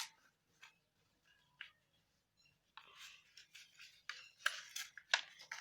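Square sheet of origami paper being folded and creased by hand: faint scattered crinkles and rustles, busier in the second half.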